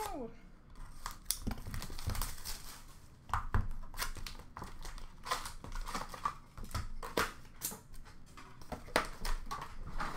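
A trading card box being opened by hand: plastic wrapping crinkling and tearing, and cardboard and cards being handled, in a string of irregular crackles and taps.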